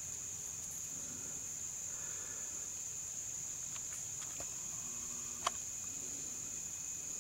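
Steady high-pitched chorus of insects, with a single sharp click about five and a half seconds in.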